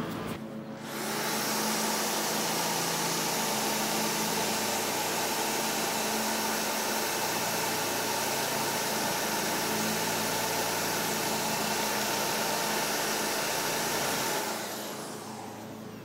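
Rubber eraser wheel spinning on a power drill and grinding against the painted steel side of a school bus, scrubbing off reflective tape. It is a steady whirring grind that starts about a second in and dies away near the end.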